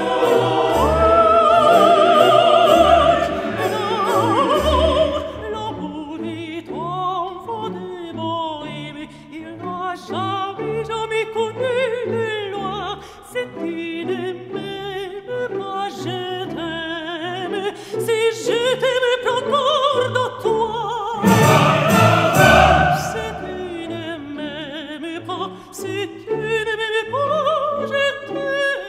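Operatic singing with orchestral accompaniment, the voice holding long wavering notes; the music swells to fuller, louder passages at the start and again about three-quarters of the way through.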